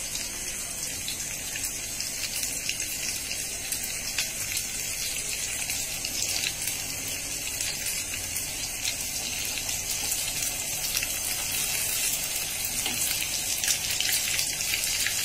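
Egg-mixed pitha cakes deep-frying in hot oil in a pan, a steady sizzle full of fine crackling that grows gradually louder with the gas flame just turned up.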